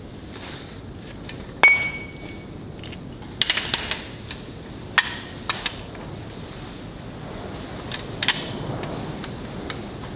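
Metal clinks and clanks of a large steel socket and a torque wrench being handled and fitted together. One sharp ringing clink comes about two seconds in, a quick cluster around three and a half seconds, and a few more near five and eight seconds.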